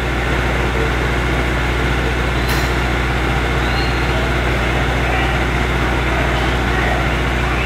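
Steady low hum over a background of crowd noise, with a single brief click about two and a half seconds in.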